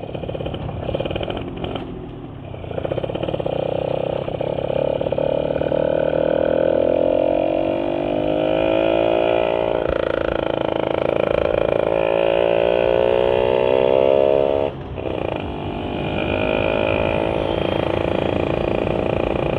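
Yamaha Sigma two-stroke motorcycle engine, fitted with a UMA 30 mm carburettor and a V-Force4 reed manifold, pulling under way. Its pitch climbs steadily, drops sharply for a moment about fifteen seconds in, then rises again. The owner finds the mixture still a touch lean.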